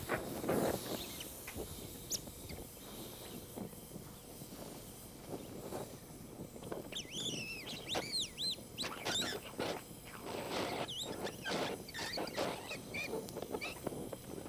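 Brazing torch flame hissing while bronze brazing rod and flux melt onto red-hot cast iron, with crackling and sputtering that grows dense in the second half as the flux flares. A few high squeaky chirps come about halfway through.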